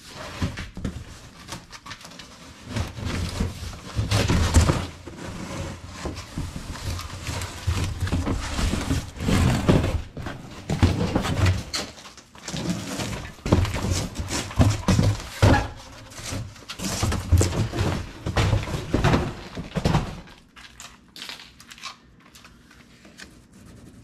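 Large cardboard shipping box being pulled up and off a steel crate: irregular scraping, rustling and thumps of heavy cardboard, dying down for the last few seconds.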